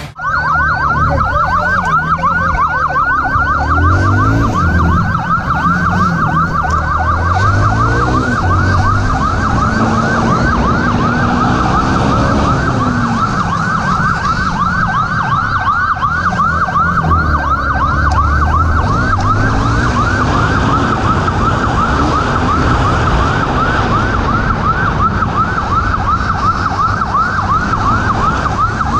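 Police motorcycle siren in fast yelp mode: a rising wail repeating several times a second without a break. Beneath it the motorcycle's engine rises and falls in pitch as it rides.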